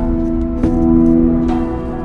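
Background music: slow, sustained instrumental notes, with a new note entering every half second or so.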